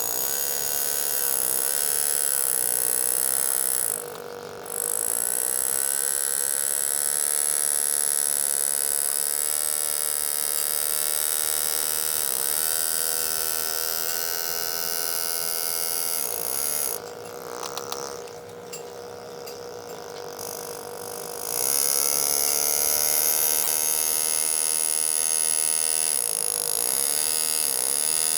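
Power engraving handpiece buzzing as it cuts into a steel shotgun receiver, its pitch wavering slightly as the speed changes. It drops out briefly about four seconds in and goes much quieter for a few seconds in the second half.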